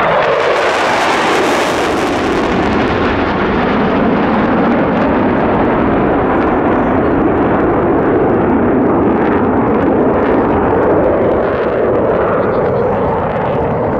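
Jet engine noise of F/A-18 Hornet fighters flying low past: a loud, steady roar, harshest in the first two seconds.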